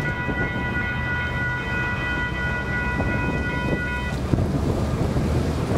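Distant locomotive horn held on one steady chord, cutting off about four seconds in, over a low rumble of the train and wind on the microphone.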